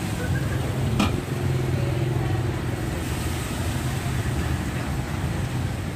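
A motor vehicle engine, most like a motorbike, running steadily close by in street traffic, over an even hiss from oil frying in the pan. A single sharp click about a second in.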